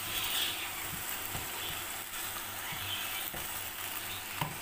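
Small pieces of chicken and green chillies sizzling in oil in a pan, a steady hiss with a few light taps; the chicken has let out its water as it cooks.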